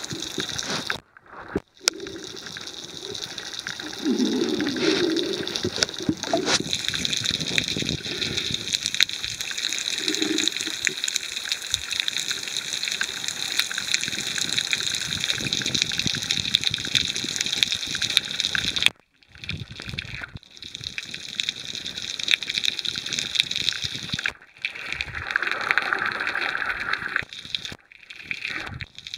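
Underwater ambience heard through a camera's waterproof housing: a steady rushing hiss of moving water and bubbles with fine crackling, broken by a few sudden brief dropouts.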